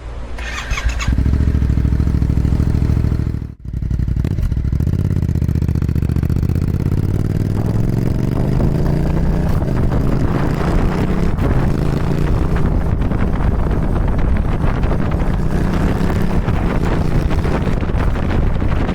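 Yamaha MT-07's 689 cc parallel-twin engine through a Musarri aftermarket exhaust, heard from a camera mounted on the moving bike. It comes in loud about a second in and drops out briefly near four seconds. It then pulls with rising and falling pitch as wind noise builds.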